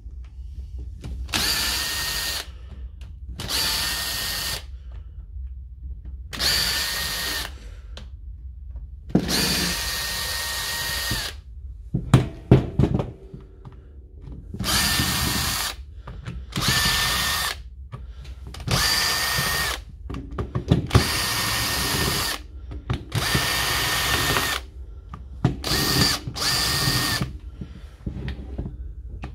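Cordless drill-driver spinning a long screwdriver bit in short runs, about a dozen of one to two seconds each with a steady motor whine, backing out the housing screws of an impact wrench. A few clicks and knocks between runs.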